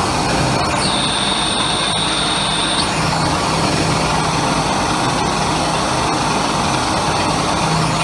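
Live experimental noise music: a dense, steady wall of noise. A high steady tone comes in about a second in and cuts off near three seconds, over a low hum that drops out and returns.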